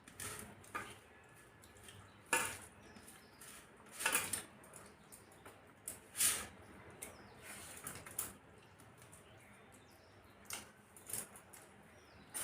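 Eating sounds: irregular soft smacks and clicks of chewing and of rice and curry being handled, one every second or two.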